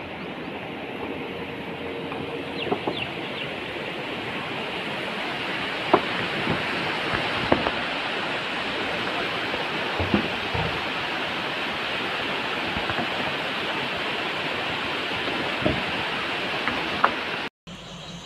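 Steady rushing running noise of a moving train heard from on board, with scattered clicks and knocks. It cuts off abruptly near the end.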